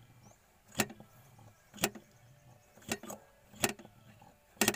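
Hand primer pump on a diesel fuel filter head being pumped, a sharp click with each stroke, five strokes at about one a second. The pumping primes the fuel system, drawing diesel up into the filter to bleed out air.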